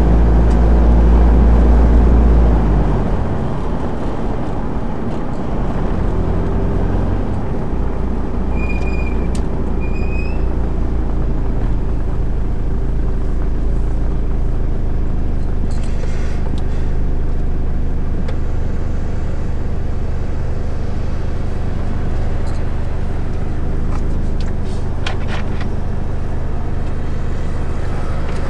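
A car's engine and road noise heard from inside the cabin while driving slowly, a steady low rumble that is loudest for the first few seconds and then eases off. Two short high chirps come about nine seconds in.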